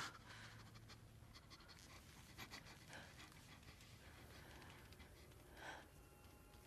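Near silence with faint, heavy breathing, one breath stronger near the end.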